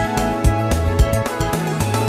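Background music with a steady beat, about two beats a second, over held instrumental notes.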